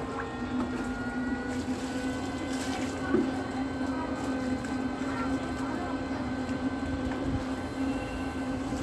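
Steady low mechanical hum with wind buffeting the microphone, and a short knock about three seconds in.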